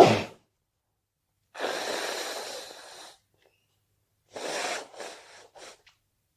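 A person's allergy sneeze, the loudest sound, right at the start. It is followed by a long noisy breath of about a second and a half, then four short sniffs near the end.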